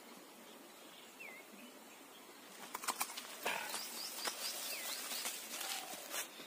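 Small birds chirping a few short calls. From about three seconds in there is louder rustling with scattered clicks.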